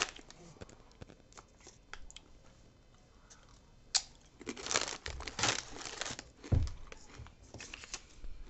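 A foil potato-chip bag crinkling as it is handled. The crinkling comes in a few bursts, mostly in the second half, with a dull thump near the middle.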